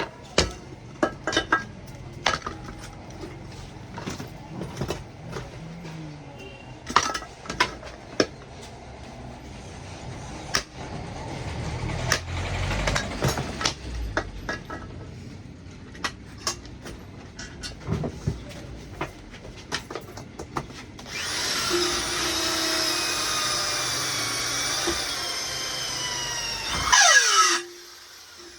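Scattered clicks and knocks of hand work, then a small high-speed motor, like a power tool's, whines steadily for about six seconds before its pitch falls away and it stops near the end.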